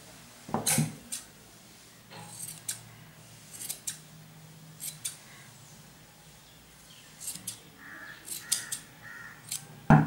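Scissors snipping through wool yarn, trimming a pom-pom to shape, in short cuts at irregular intervals.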